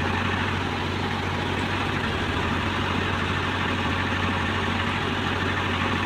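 Heavy diesel engine running steadily with an even, low drone.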